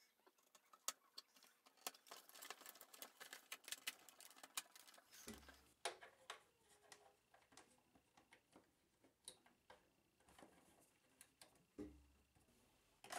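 Near silence broken by faint, scattered clicks and taps, densest in the first half, and a few soft thumps: the plastic top panel of a Tascam 414 Mk2 cassette portastudio being seated on its chassis and cables being plugged into it.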